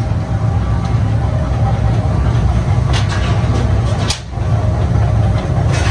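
Steady low machinery rumble in a metal workshop, with a few sharp clicks or clanks and a brief drop in level about four seconds in.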